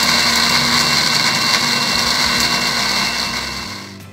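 Electric blender motor running at full speed, puréeing a wet spice paste of shallots, garlic, candlenuts and ginger with water: a loud, steady whine that dies away near the end as the motor is switched off.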